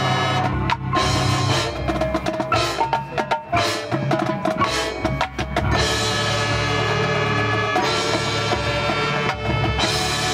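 High school marching band playing its field show. Drums and other percussion strike a run of accented hits over the band, then from about six seconds in the band holds long sustained chords.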